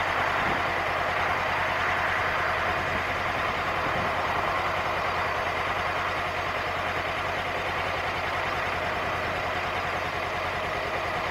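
2016 Honda CB500X's 471 cc parallel-twin engine idling steadily.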